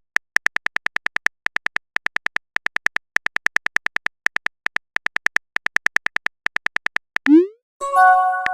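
Phone-chat sound effects: rapid bursts of short, high electronic ticks like on-screen keyboard typing, then near the end a quick rising bloop and a ringing multi-note chime, the tones of a message being sent and arriving.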